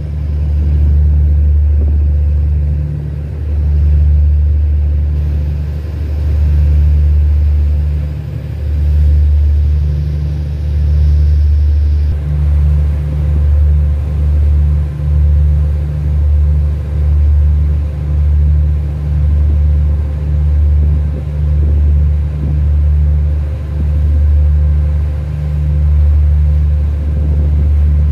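Loud, steady low rumble of the engine of the small boat the filming is done from. About halfway through it starts to swell and dip roughly once a second.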